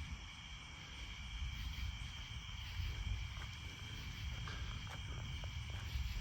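Steady night insect chorus, two constant high-pitched trills, over a continuous low rumble, with a few faint clicks near the end.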